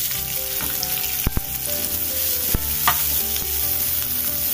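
Chopped onion and garlic sizzling steadily in hot oil in a kadai, stirred with a spatula that gives a few sharp taps against the pan.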